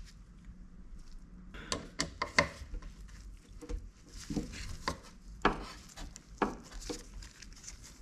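Irregular clicks, knocks and rubbing of plastic and metal parts as a car's electric window regulator mechanism is worked apart by hand. The parts are stiff and hard to free.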